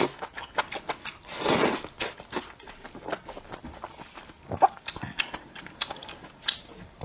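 A person slurping noodles in spicy broth, with one long slurp about a second and a half in, then wet chewing and many short lip-smacking clicks.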